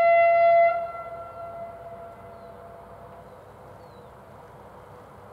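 Diesel locomotive horn (class 203 / V100) sounding one steady, high single-pitched blast that stops under a second in and dies away over about two seconds, leaving faint steady background noise.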